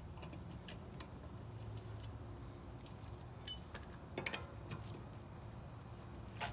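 Light metallic clinks and ticks from a lug wrench and lug nuts being worked off a truck wheel, scattered and then a short cluster a little past halfway, over a low steady hum.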